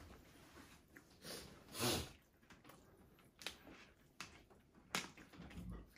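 Quiet room with a short, hiss-like noise about two seconds in, followed by a few light, sharp clicks.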